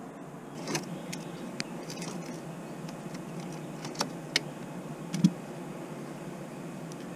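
Scattered sharp metallic clicks and clinks of hands and tools working on a mini excavator's fuel filter assembly, where a brass sediment bowl is being undone. The loudest click comes about five seconds in.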